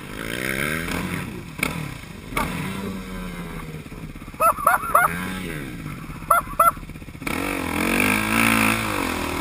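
Suzuki RM-Z 450 four-stroke single-cylinder dirt bike engine revving up and down as it is ridden along a trail and through a water hole, heard from the rider's helmet camera. A few short, high whoops cut in about halfway through.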